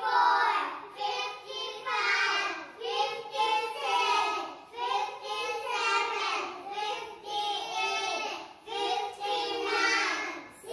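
Group of young children counting aloud in unison, chanting one number about every second.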